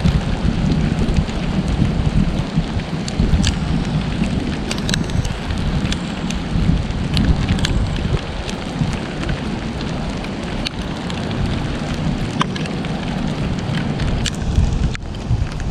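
Rain falling, with scattered sharp drop ticks over a steady low rumble of wind on the microphone.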